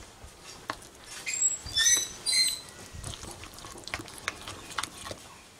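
A spoon stirring wet gram-flour batter in a ceramic bowl: quick, irregular clicks and wet patter as the spoon works through the batter, with a few short high squeaks about one and a half to two and a half seconds in.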